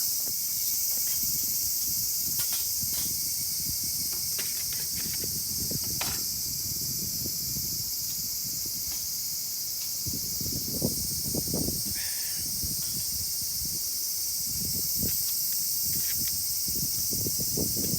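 Steady, high-pitched chorus of insects, with faint low rustling and a few soft knocks beneath it.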